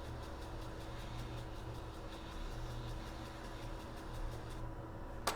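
Steady low electrical hum of bench equipment with a faint, fast, regular ticking over it, and a single sharp click near the end.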